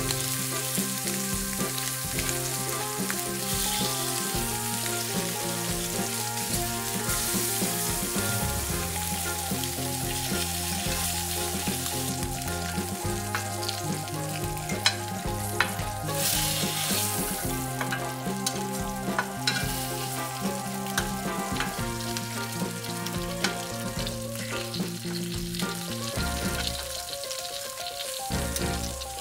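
Beef short ribs searing in hot fat in a shallow enameled braising pan, a steady loud sizzle, as they are browned on high heat before braising. A few sharp clicks and pops come through midway as the pieces are turned with metal tongs.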